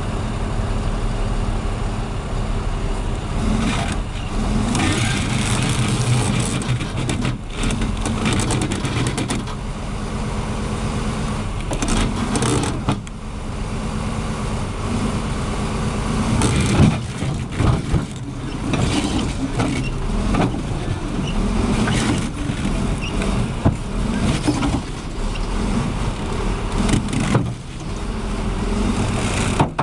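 Heavy vehicle engines running, mixed with scattered knocks and clatters. The sound changes abruptly several times.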